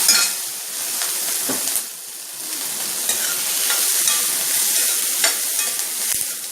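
Vegetables and freshly added tomatoes sizzling in hot oil in a kadai, stirred with a spoon that scrapes and clicks against the pan now and then.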